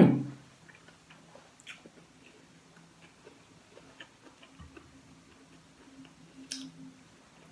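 Quiet eating by hand: soft chewing and small clicks of fingers picking food off a ceramic plate, with a sharper tap about six and a half seconds in and a faint steady hum underneath. It opens with the end of a short rising vocal 'mm'.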